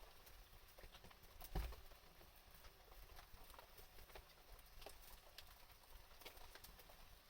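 Wood campfire crackling: faint, irregular pops and snaps, with one louder pop about a second and a half in.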